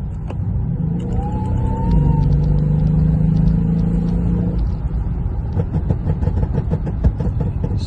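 Car running with a loud low rumble and a weird whine whose source is not yet known. The whine rises in pitch about a second in, holds steady, then stops about halfway through, followed by a run of quick ticks.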